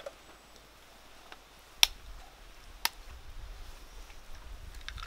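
Two sharp taps about a second apart: an egg being knocked against a wooden spoon to crack it for the frying pan. A low rumble comes in with the first tap.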